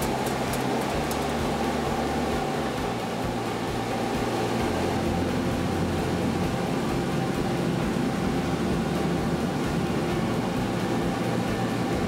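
Steady rushing of air with a low hum underneath, like a blower running. In the first second, quick scratchy strokes of a hand brush sweep metal dust out of the chamber.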